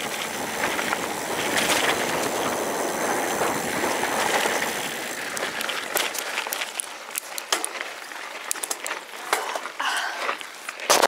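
Loaded mountain bike rolling over a dirt and gravel trail, heard from a handlebar-mounted camera: a steady rush of wind and tyre noise, which eases about six seconds in, giving way to scattered clicks and rattles of the bike and its bags over rough ground.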